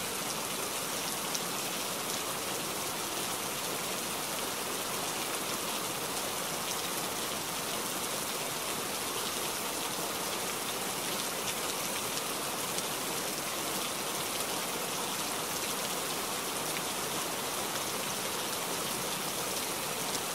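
Steady rain falling on water and wet ground, an even hiss flecked with faint drop ticks.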